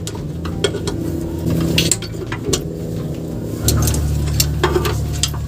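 Metal clinks and taps of hand tools during clutch and transmission work, over a steady low mechanical hum that gets louder about two-thirds of the way in.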